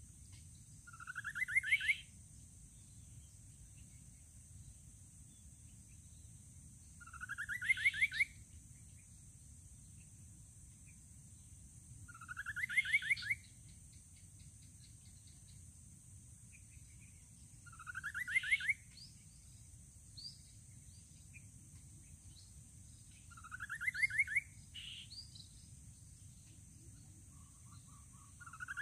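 Rufous-capped babbler song: a short rising trill of quick piping notes, about a second long, repeated six times at an even interval of five to six seconds.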